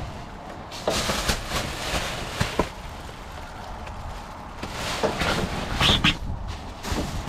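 Irregular knocks, clatter and rustling of things being handled and moved about, a few sharper clicks among them.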